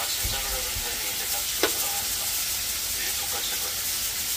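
Pork belly and sliced meat sizzling steadily on a ridged cast-iron grill pan, with one sharp click of metal tongs against the pan about a second and a half in.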